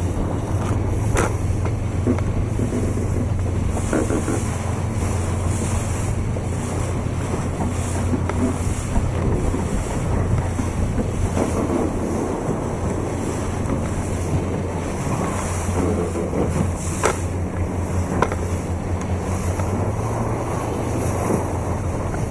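Wind buffeting the microphone over choppy water, with waves and spray washing under sailing yachts, and a steady low hum underneath. A few short sharp knocks stand out briefly.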